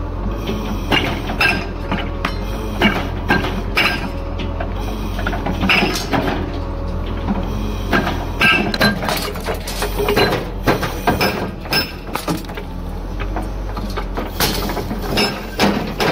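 A heavy demolition machine's engine running steadily under many irregular sharp clanks and knocks as concrete and metal debris are broken and crushed.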